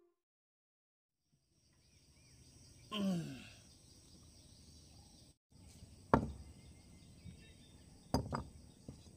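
Quiet outdoor background with faint birds and insects, a short falling call about three seconds in, and two sharp knocks, the first about six seconds in and loudest, the second about two seconds later.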